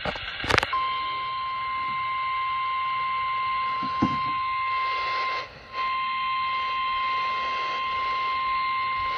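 Emergency Alert System attention signal received over FM radio: one long, steady, single-pitch alert tone of the kind used for National Weather Service warnings, over radio hiss. It begins just under a second in after a short burst and drops out briefly about five and a half seconds in.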